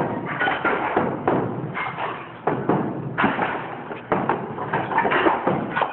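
Construction work: a run of irregular knocks and thuds, several a second.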